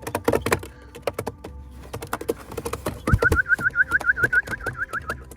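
Racing pigeons at the loft: a clatter of wing flaps and scuffling, then about three seconds in, a rapid high chirping trill of about seven short notes a second lasting two seconds.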